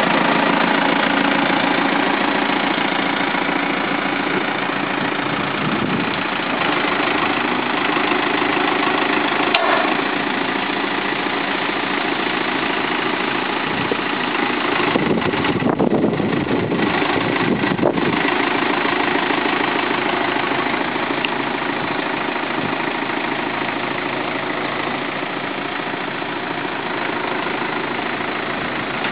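Caterpillar 432D backhoe loader's diesel engine running steadily while the backhoe arm is worked hydraulically. For a few seconds past the middle the engine note changes.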